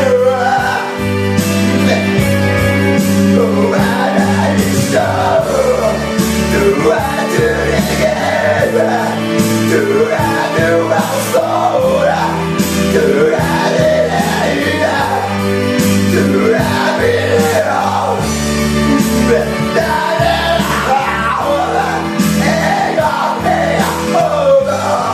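A man singing into a microphone over a karaoke backing track with bass and a steady beat.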